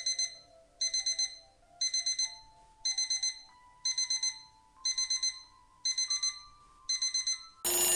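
Quiz countdown timer sound effect: a quick cluster of four or five high electronic beeps, like an alarm clock, once every second. A faint low tone steps up in pitch beneath it, and a brighter ringing sound starts near the end.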